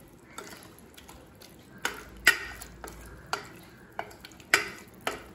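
A spoon stirring and scraping through soaked toor dal, tomatoes and spices in a metal pressure cooker pot, with irregular clinks against the pot's side.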